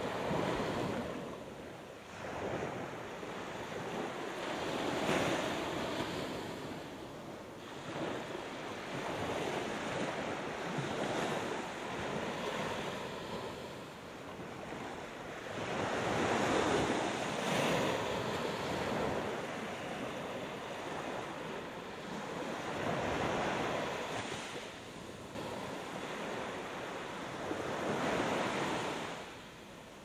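Small Gulf of Mexico waves breaking and washing up a sand beach, the surf swelling and easing in a slow rhythm, about one wave every five or six seconds.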